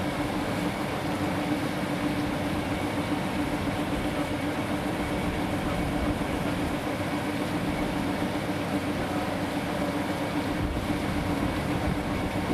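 Steady drone of a running waste gasification unit's machinery, with a constant low hum and a faint high tone over it.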